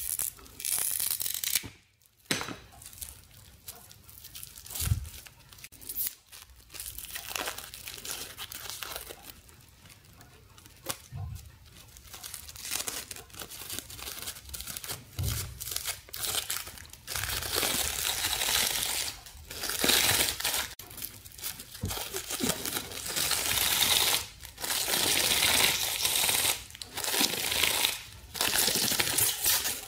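Thin metal foil and plastic film being peeled off a wound roll by hand, tearing and crinkling in irregular bursts that grow busier and louder in the second half, with a few soft handling knocks.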